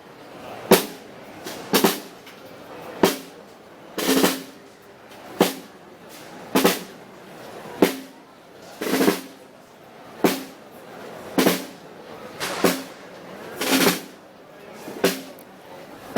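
Marching snare drums beating a slow procession cadence: one stroke about every second, with a short roll on every fourth beat.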